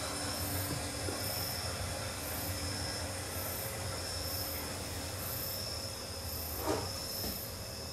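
Ambient performance soundscape: a steady hiss over a low rumble, with short insect-like chirps repeating high up about once a second. A brief louder sound stands out near the end.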